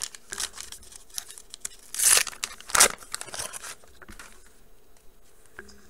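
Foil wrapper of a 1989 Upper Deck baseball card pack being torn open by hand: crinkling and crackling foil, with two loud rips about two and three seconds in, then a quieter crackle as it is peeled back.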